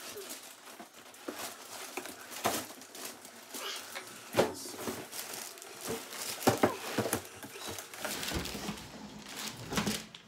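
Cardboard boxes and plastic packaging being handled: irregular scraping, rustling and crinkling, broken by several sharp knocks, the loudest about four and a half and six and a half seconds in.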